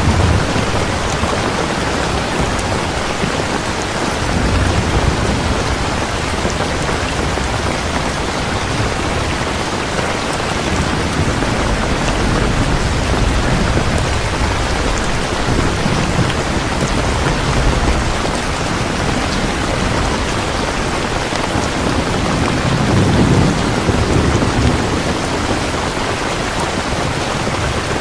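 Heavy rain falling steadily, with low rolls of thunder rumbling about five seconds in and again near the end.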